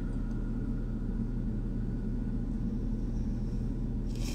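Steady low hum of room background noise, with a brief soft hiss near the end.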